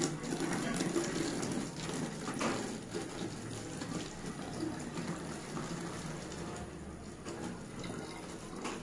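Water pouring from a plastic jug into a plastic bottle in a steady splashing stream, gradually getting quieter.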